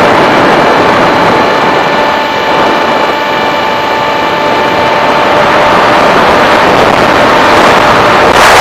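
Electric motor and propeller of an FPV model aircraft running with a steady whine, under a loud rush of wind noise.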